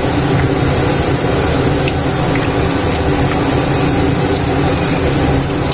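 Steady, loud drone of a motor with a low hum, unchanging throughout.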